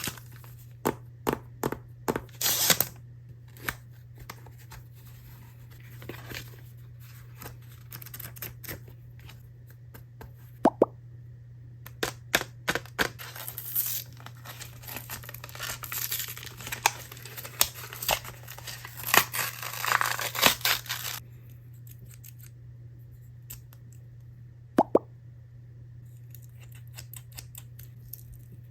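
Hands unboxing small plastic-packaged stationery items: scattered clicks and taps of objects being handled and set down, with a long stretch of plastic packaging crinkling and tearing in the middle. A faint steady low hum sits underneath.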